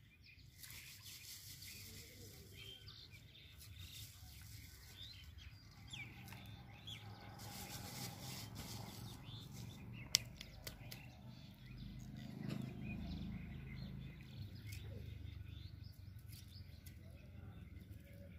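Faint chirping of small birds, scattered through, over low outdoor background noise, with one sharp click about ten seconds in.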